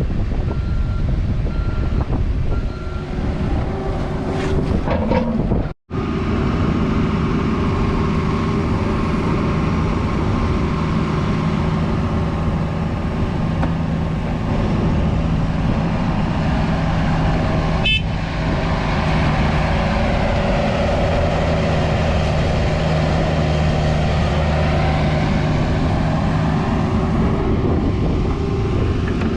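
Diesel engine of a Cat 304 mini excavator running steadily while it works. A backup alarm beeps about once a second for the first few seconds. The sound drops out briefly about six seconds in, and there is a single sharp click near the middle.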